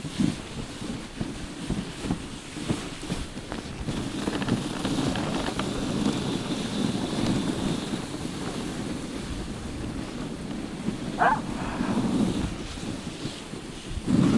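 Dog sled running over snow behind a team of huskies: the runners hiss and scrape on the snow while wind buffets the microphone. A short, high squeal about eleven seconds in.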